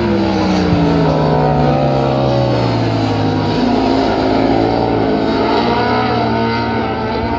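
A pack of superbikes racing past at high revs, several engines overlapping, their pitches falling as the bikes go by.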